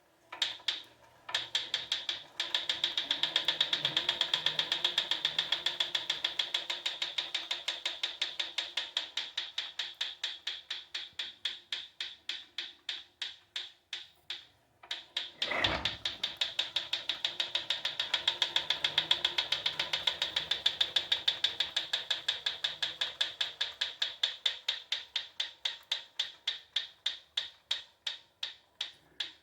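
Proform Power C7L exercise bike ticking rapidly, several ticks a second, while its flywheel turns. The ticks slow and fade as it spins down, stop about halfway, then start again with a thump. The owner says the ticking keeps getting louder and more frequent alongside a worsening wheel wobble, with no loose bolts or visible rubbing.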